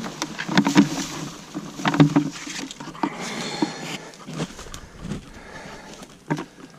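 Hollow knocks and rustling from a plastic green garden-waste bin being handled as weeds and soil go into it. The loudest knocks come about a second in and again at two seconds, with a short squeak near the middle.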